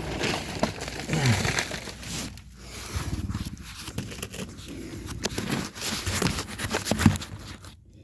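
Rustling, scraping and crackling of old wooden floor framing being worked loose by hand, with scattered light knocks and one sharp knock about seven seconds in.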